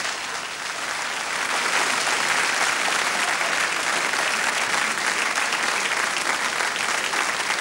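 Theatre audience applauding, swelling over the first second or two and then holding steady.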